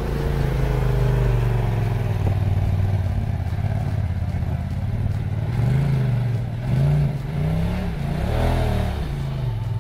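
Polaris RZR Turbo side-by-side's turbocharged twin-cylinder engine running under load as it crawls up a rock ledge, revved up and back down about four times in the second half.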